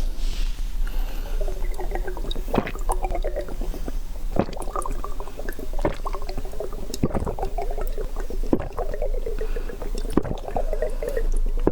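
Close-miked eating sounds: wet slurping and squishy chewing, with sharp wet clicks about every second and a half.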